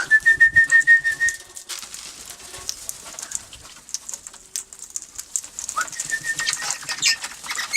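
Parrots calling as they gather to be hand-fed: a rapid run of short, high, same-pitched notes at the start and again about six seconds in, among scattered high squeaks and chatter.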